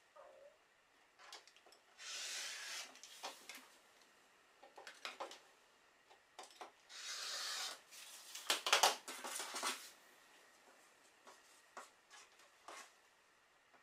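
Rotary cutter rolling through fabric along an acrylic ruler on a cutting mat: two strokes of about a second each, near two and seven seconds in. The second cut is followed by a cluster of knocks and clatter as the ruler is handled, with light taps and rustles of fabric being moved.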